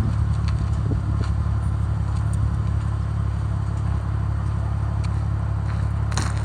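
Chrysler Crossfire SRT-6's supercharged 3.2-litre V6 idling steadily while it is checked for misfires, with a few light clicks near the end.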